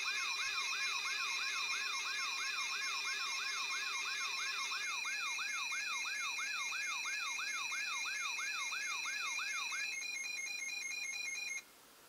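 Electronic siren sound effect: a fast whooping tone sweeps up and down about three times a second, layered over steady, high, pulsing alarm beeps. The whooping stops about ten seconds in, and the beeps cut off suddenly just before the end.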